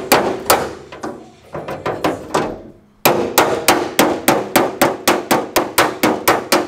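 Hammer blows on a car's sheet-metal body panel, sharp metallic strikes with a short ring. The strikes come unevenly at first, stop briefly near the middle, then resume at a steady pace of about three a second.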